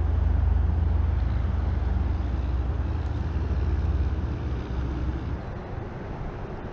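Low rumble of passing road traffic, steady at first and then fading away over the last couple of seconds.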